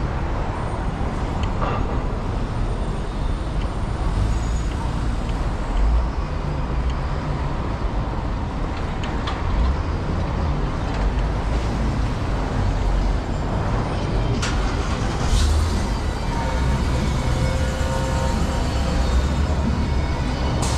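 City street traffic: a steady rumble of passing cars and buses, with a sharp click about fourteen seconds in.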